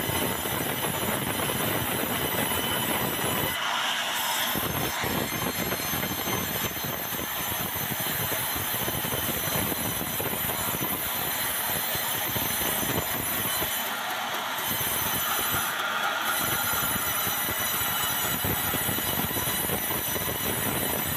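Sawmill band saw running and cutting lengthwise through a large, very hard, dry bengkirai (yellow balau) timber: a steady high-pitched whine over dense grinding noise that keeps on without a break.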